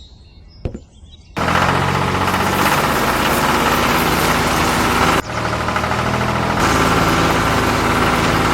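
A single knock, then a motor starts up abruptly about a second and a half in and runs steadily and loudly with an engine-like drone. It drops briefly about five seconds in, then runs on.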